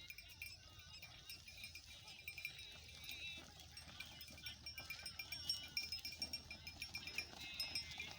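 Faint farm-animal calls: many short, high-pitched calls and chirps overlapping, some wavering in pitch.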